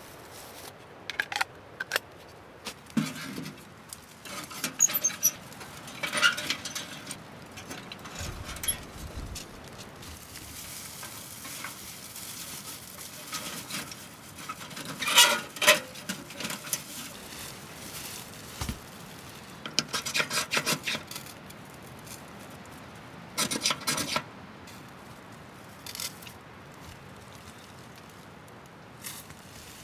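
Short bursts of scraping and rustling a few seconds apart, the loudest about halfway through: a fire being started from a tinder bundle of gathered dry bits.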